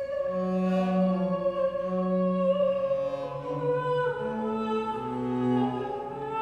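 Classical-style female voice holding one long, slightly wavering note that steps down partway through, over a bowed cello playing slow, sustained low notes.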